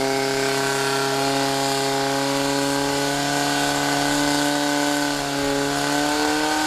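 Portable fire pump's engine running steadily under load, feeding water to the competition hoses, its pitch dipping slightly about five seconds in.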